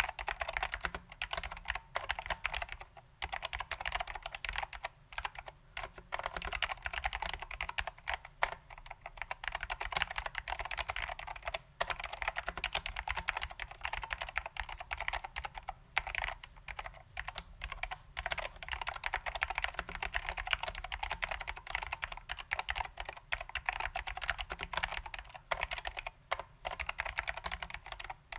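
Steady typing on a custom 60% keyboard with SKCM Salmon Alps switches lubed with dry lube and original Alps doubleshot keycaps. Keystrokes come in a dense, quick stream, broken by a few short pauses.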